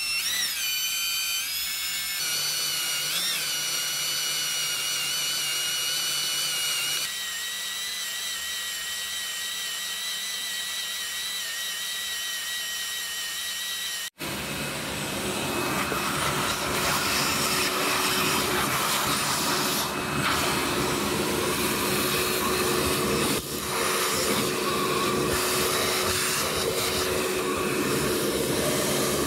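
Cordless drill boring into the cast-iron housing of a Dana 30 differential at slow speed, a steady motor whine that shifts pitch a few times. About halfway through it cuts to a rougher, noisier drilling sound.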